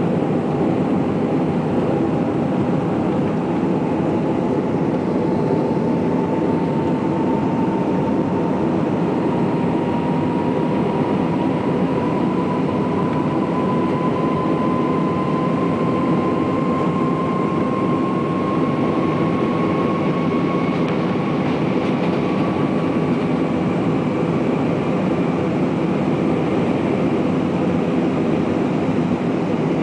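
Jet airliner engines heard from inside the passenger cabin during the climb after take-off: a steady, loud drone with a thin whine that rises slowly in pitch over about twenty seconds, then fades.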